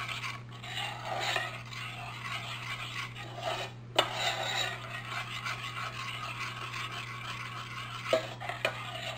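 Metal spoon stirring and scraping thick gravy around the bottom of a metal saucepan, a continuous rasping stir. There is a sharp clink of spoon against pan about four seconds in, and a few lighter knocks near the end.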